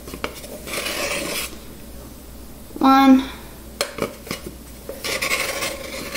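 A metal measuring cup scraping and knocking inside a canister of cocoa powder as it scoops, with two stretches of scraping and a few light clicks. About halfway through there is a short, loud pitched tone.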